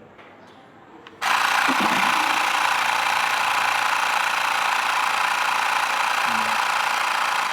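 Mi portable electric air compressor switching on about a second in and running steadily and loudly. It shuts itself off right at the end on reaching its set pressure.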